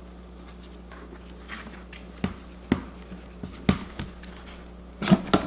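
Plastic batter-coating bowl (Flip n Fry) being flipped and handled on a countertop: a few short knocks of plastic against the counter, with the loudest pair near the end.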